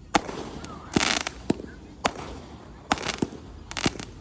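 Aerial fireworks bursting overhead: a string of sharp bangs at irregular intervals, with short spells of crackling about a second in and again near the end.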